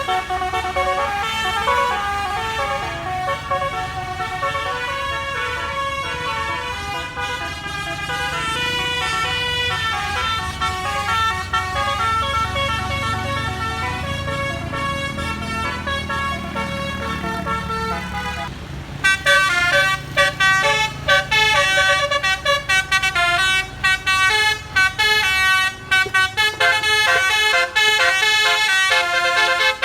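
Bus 'telolet basuri' melodic air horns playing a quick tune of changing notes over a bus engine's low rumble, which swells near the middle. About two-thirds of the way in a louder horn tune starts, its notes cutting on and off rapidly.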